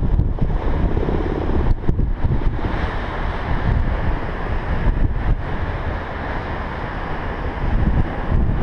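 Wind buffeting the microphone in gusts, with the wash of surf breaking below the cliff underneath it.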